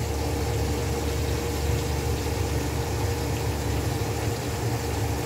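Steady low rumbling hum with a faint steady tone over it, like a motor running, unchanged throughout.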